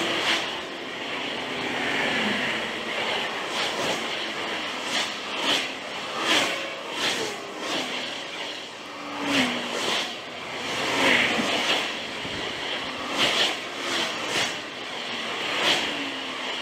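Road traffic passing close by, cars and vans going past one after another. Each engine note drops in pitch as the vehicle passes.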